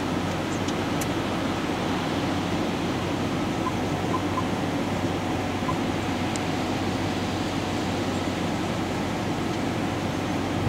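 Steady rumble and hum of an idling vehicle, with a fan-like hiss, heard from inside the cab.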